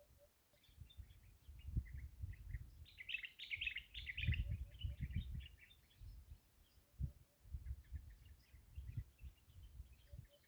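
Small birds chirping and twittering, with a dense burst of overlapping calls about three to four seconds in, over an uneven low rumble.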